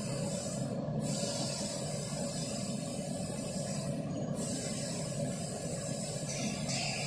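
Steady low rumble with hiss, the background noise of a factory hall, with no distinct knocks or clicks.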